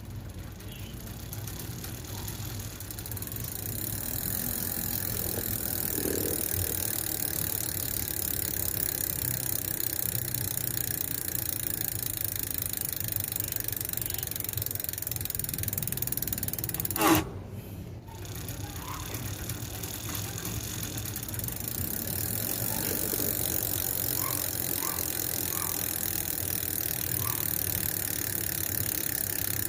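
Ragusa R200 rear hub freewheeling: a rapid, continuous buzz of pawl clicks that builds over the first few seconds. About seventeen seconds in it is cut off by a sharp knock, then picks up again and runs on.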